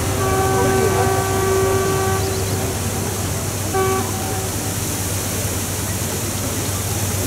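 A ship's horn sounds a long blast of about two seconds, then a short blast about four seconds in, over a steady low hum.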